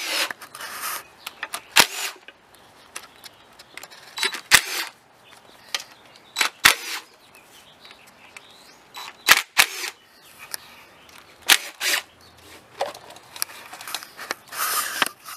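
Irregular sharp metallic clicks and clinks of hand tools and bolts as the valve cover bolts are worked loose, with a few short rasping bursts of tool noise.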